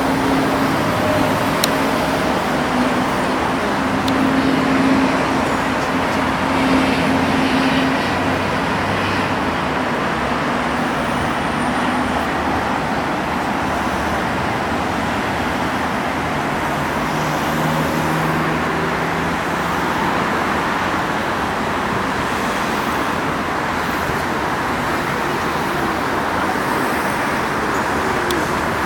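Steady road traffic noise from a busy city square, with the hum of engines passing now and then.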